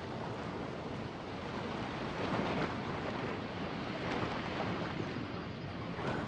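Steady rushing outdoor wind, swelling briefly a couple of times.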